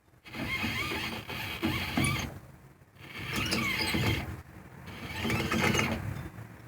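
Grinding and squealing from the wheel bearings of a 1985 Jeep's AMC 20 axle, a rough grind with a squeal that wavers in pitch, coming in stretches with brief breaks. It is the sign of wheel bearings worn out on both sides.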